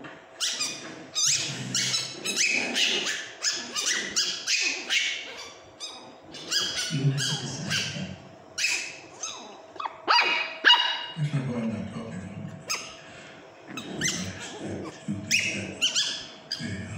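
Pomeranian puppies yapping and yipping in rough play: short, high, squeaky barks coming in quick runs, with brief pauses.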